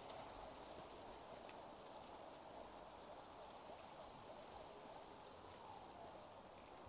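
Near silence: faint outdoor ambience, a soft even hiss.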